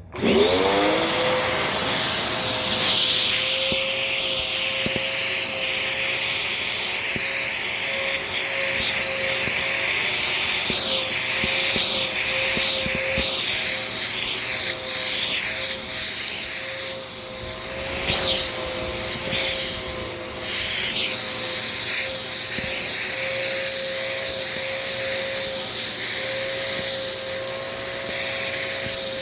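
Dirt Devil Power Max vacuum switching on and spinning up to a steady whine right at the start, then running as its nozzle is worked over a couch cushion, with scratchy rubbing on the fabric and the pitch dipping briefly now and then.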